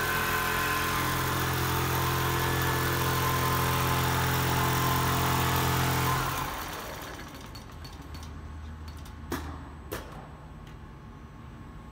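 Computerized single-needle quilting machine running with a steady mechanical hum. About six seconds in the main running sound cuts out, leaving a quieter hum, and two sharp clicks follow near the end.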